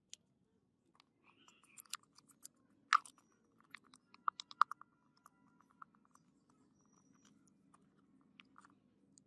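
Faint scattered clicks and taps of a small stick spreading clear glue over a round clear disc, the sharpest about three seconds in and a quick cluster around four and a half seconds, a few of them ringing briefly.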